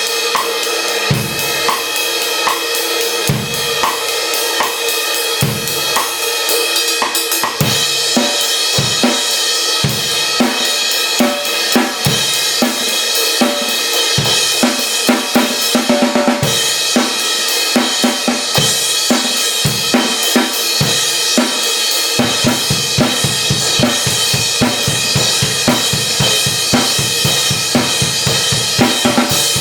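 Zildjian 18-inch A Crash Ride cymbal ringing in a continuous wash over a drum-kit groove of bass drum and snare. About two-thirds of the way through, the bass drum switches to fast, even strokes under the cymbal.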